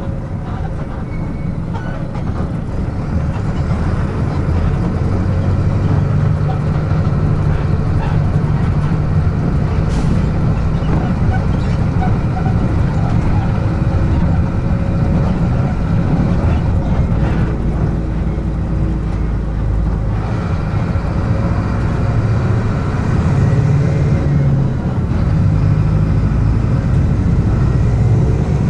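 Mercedes-Benz OF-1722M bus's front-mounted diesel engine running as the bus is driven, heard from on board, its note rising and settling with throttle and gear changes. A single short click about ten seconds in.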